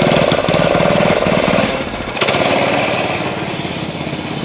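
Go-kart's small engine running with a rapid, even pulse as the kart drives away, a little quieter after about two seconds.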